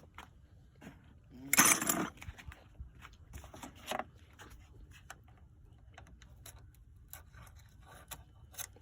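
Scattered clicks and knocks of tools and parts being handled in a car's engine bay while hoses are being taken off, with one louder clatter lasting about half a second around a second and a half in.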